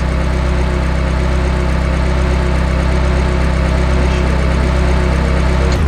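Simulated car engine idling steadily.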